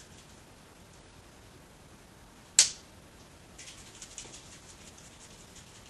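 A glow stick cracked with one sharp snap about two and a half seconds in, then shaken with a light, fast rattle; the snap is the inner glass vial breaking, which starts the glow.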